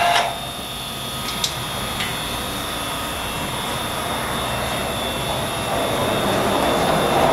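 Steady whirring hum of the vacuum glass lifter's electric vacuum pump running while it holds a glass pane, with a faint high steady tone and two light clicks about a second and a half and two seconds in. A louder sound cuts off just after the start, and the hum swells a little near the end.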